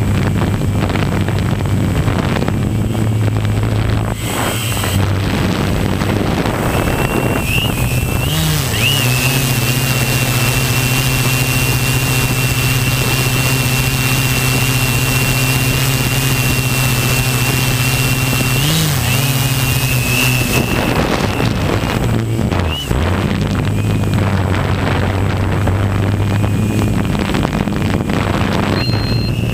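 Quadcopter drone's electric motors and propellers humming steadily with a high whine, heard from the camera on the drone itself. The pitch steps up about eight seconds in, holds there, and drops back down around twenty seconds.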